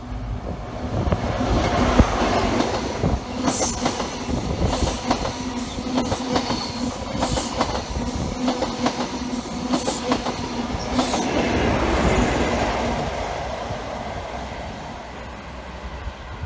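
CrossCountry HST (Class 43 power cars with MTU engines, Mk3 coaches) passing through a station. The leading power car's engine swells as it goes by, then a rapid clickety-clack of wheels over rail joints as the coaches pass. A second swell about twelve seconds in as the rear power car passes, then the sound fades away.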